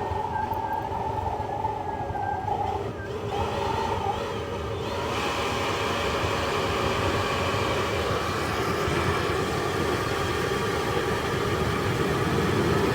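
Two burners firing into a homemade metal-melting furnace: a steady rushing roar with a low rumble. A steady whistling tone sounds over it early on and fades out, and about five seconds in the roar grows louder and brighter, with more hiss.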